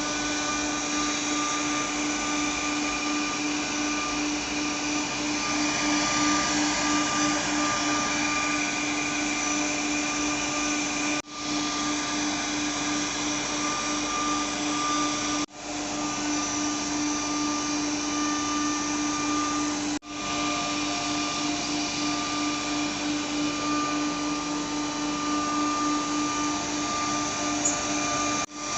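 CNC router spindle running at a steady high whine while the bit carves a 3D horse relief in wood, with a dense hiss of cutting noise. The sound breaks off for an instant four times.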